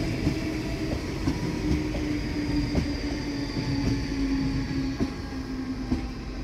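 Red DSB S-train, an electric commuter train, running past and away along the track: a steady whine with wheels clicking irregularly over rail joints and a low rumble, fading near the end.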